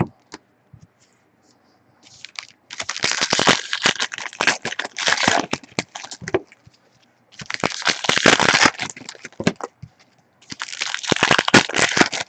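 Plastic trading-card packaging crinkling and tearing as it is handled and opened, in three bursts of crackling with short pauses between.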